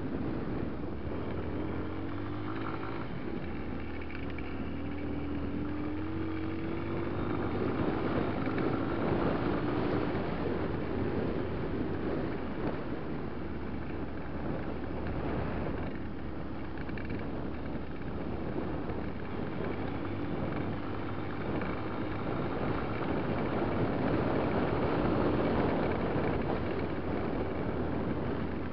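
Enduro motorcycle engine running under load over a rough dirt track, heard from on board with wind buffeting the microphone. The engine note climbs steadily for several seconds in the first third, with louder stretches as the throttle opens.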